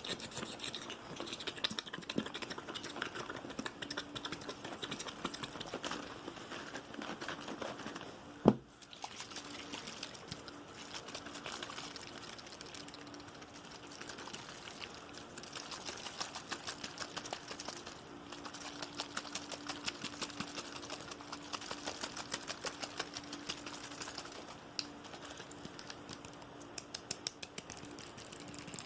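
Fast, aggressive ASMR tapping: a rapid, continuous patter of small taps, with one much louder sharp knock about eight seconds in.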